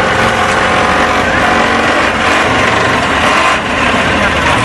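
Diesel concrete pump's engine running steadily and loudly, with a brief dip in level about three and a half seconds in.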